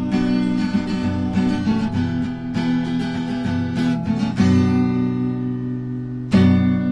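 Music: strummed acoustic guitar chords closing a song, with a final strummed chord a little after six seconds in that is left ringing.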